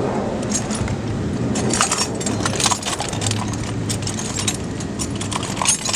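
Many small metallic clicks and clinks, coming thicker after the first second or so, over a steady low hum.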